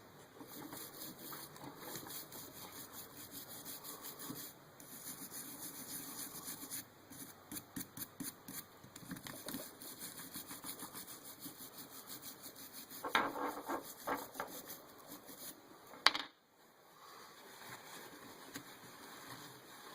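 Faint rubbing and scratching from small motor parts being handled, with a cluster of louder scrapes about 13 seconds in and a single sharp click about 16 seconds in.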